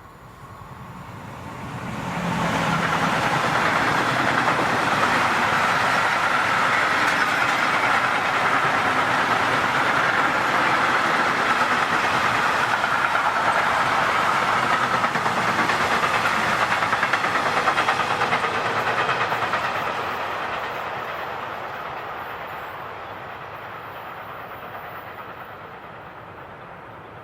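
A train passing by on the rails: the noise swells over about two seconds, holds steady and loud for around fifteen seconds, then slowly fades as it moves away.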